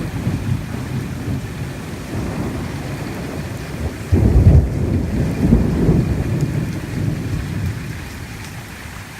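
Thunder rumbling over steady rain, with a louder roll of thunder beginning about four seconds in and fading away.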